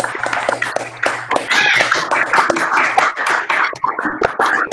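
Applause: several people clapping at once over a video call, each through their own microphone, giving a dense, uneven patter of claps.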